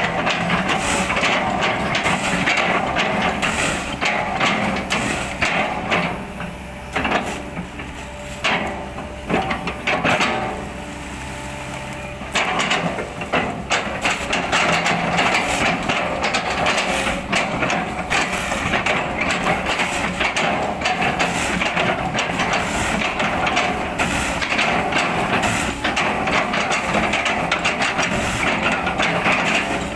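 Kobelco excavator's diesel engine running under load while its bucket chops and crushes an oil palm trunk: a dense crackle and knocking of splintering fibrous wood. The crunching eases for a couple of seconds near the middle, leaving the engine hum, then resumes.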